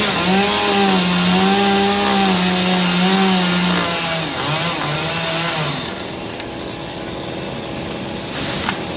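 Chainsaw running at high revs while cutting tree branches, its pitch wavering and dipping under load. After about six seconds it turns quieter.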